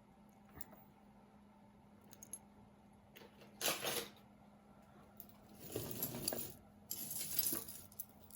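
Pieces of costume jewelry clinking and jangling against each other as they are sifted through in a box: a few light clicks at first, a louder jangle about three and a half seconds in, then longer spells of rattling near the end.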